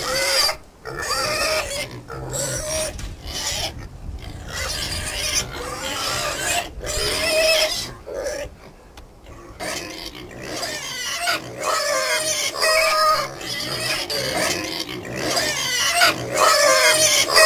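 Several domestic pigs in a pen calling over and over, a continuous string of short, harsh cries.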